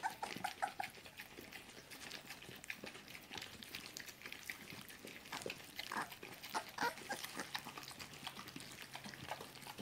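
A mother dog and her puppies lapping and licking wet puppy mash from a bowl and plate: a faint, irregular run of small wet tongue clicks.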